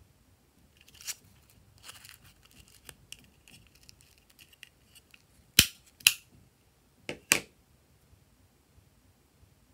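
Handheld plastic craft paper punch: paper rustling as a strip is fed in, then four sharp clacks in two close pairs as the punch is pressed down to cut heart shapes.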